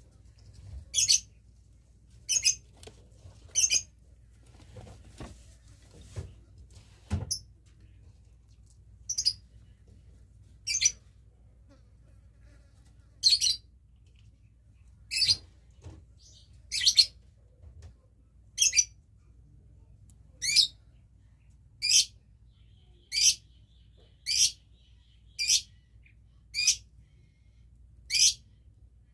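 A bird chirping: about sixteen short, high, sharp chirps repeated every one to two seconds, with a pause of several seconds after the first three. A few soft knocks sound around five to seven seconds in.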